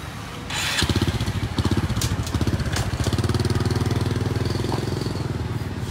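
A motorcycle engine starts running about a second in and keeps running steadily at low revs with a fast, even beat.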